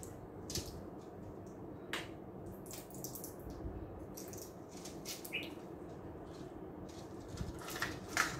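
Paper or plastic packaging being handled: scattered crinkles and small sharp clicks, the loudest near the end, over a steady low room hum.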